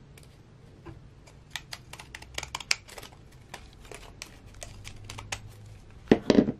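Pinking shears snipping along the edge of folded paper, a run of quick, crisp snips. Near the end comes a louder knock as the metal shears are set down on the cutting mat.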